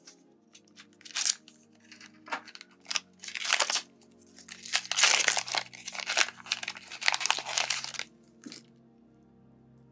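Foil Pokémon booster pack wrapper being torn open and crinkled by hand: a run of crackling, crumpling bursts for several seconds that stops near the end, over soft background music.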